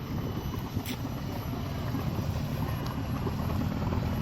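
An off-road vehicle's engine running steadily under load, a low rumble growing slightly louder.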